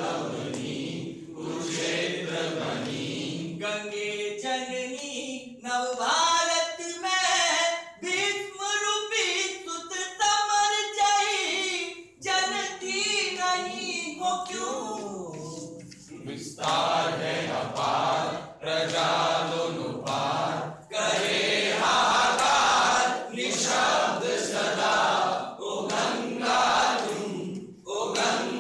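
A group of men and women singing a song together in unison, unaccompanied. The singing grows fuller and more even in loudness from about halfway through.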